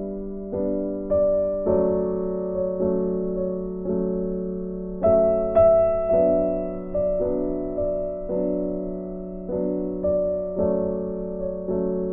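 Background piano music: gentle chords, each struck and fading, with a new chord about every second.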